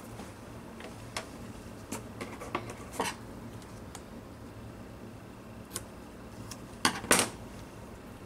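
Washi tape being handled and pressed onto a paper planner page: scattered light taps and rustles, then two sharp clicks close together about seven seconds in as scissors cut the tape.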